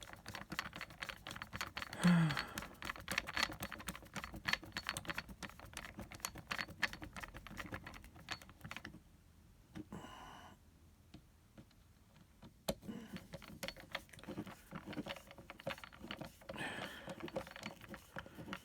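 Fast, dense clicking and rattling of small tools and a plastic case being worked by hand, pausing for a few seconds around the middle before resuming.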